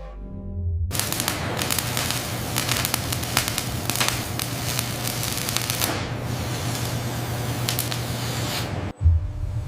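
Steady crackling hiss over a low hum, starting about a second in and cutting off suddenly near the end.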